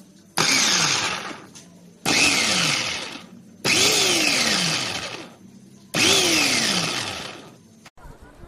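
Gaabor MG-15M01A electric meat grinder / food processor run in four short pulses. Each pulse starts abruptly, falls in pitch and dies away over about a second.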